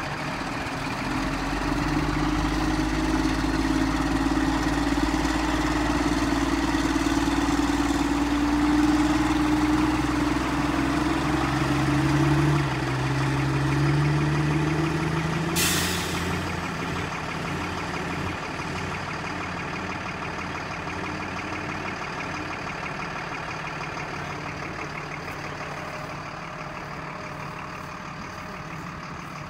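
Stewart & Stevenson military truck's diesel engine pulling away, growing louder and rising in pitch as it accelerates, then fading steadily as the truck drives off. A short, sharp hiss comes about halfway through.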